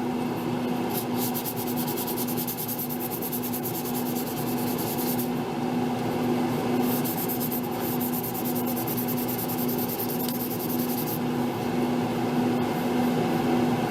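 800-grit sandpaper rubbing back and forth over a thin 5 mil brass sheet, deburring the back of a freshly milled solder paste stencil. It comes in two spells of quick strokes with a short pause around the five-second mark, over a steady background hum.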